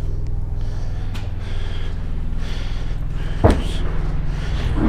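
Quilted moving blankets being handled and rustled, with one sharp thump about three and a half seconds in, over a steady low engine-like hum.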